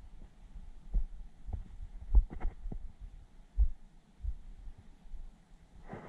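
Irregular dull low thumps and knocks, five or six over the few seconds, with a short rustle near the end.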